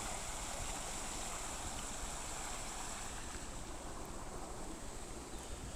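Steady rush of running water, with an uneven low rumble of wind on the microphone.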